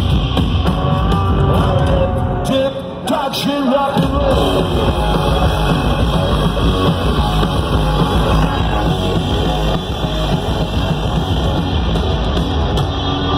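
Live rock band playing loudly, drums and amplified guitars, recorded from within the concert crowd. The low end drops out briefly about three seconds in before the band comes back in.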